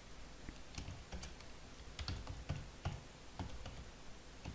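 Typing on a computer keyboard: irregular, quiet key clicks as a command is entered.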